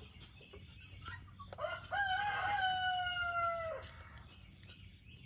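A rooster crowing once, starting about a second and a half in: a quick rise into one long held call that sinks slightly in pitch and ends shortly before four seconds.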